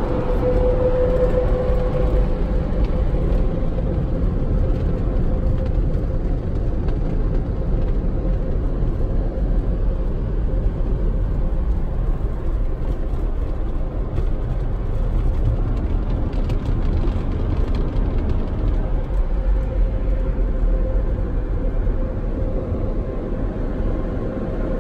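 Car wash tunnel's blower dryers running: a loud, steady rush of air with a hum that fades after the first couple of seconds and comes back near the end.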